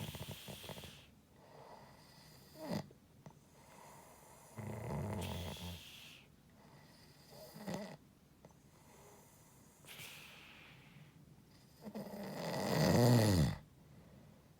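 Pig-like snoring: rough buzzing breaths broken by short snorts. The loudest snore comes near the end, a grunting tone that rises and then falls in pitch.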